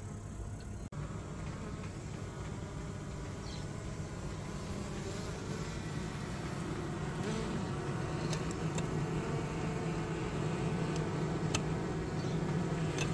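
Honeybees buzzing in a steady low drone that grows a little louder, with a few faint clicks.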